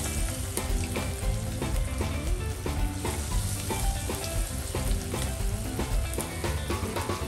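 Chicken karaage pieces deep-frying in a pot of hot oil: a dense, steady crackle and sizzle of bubbling oil.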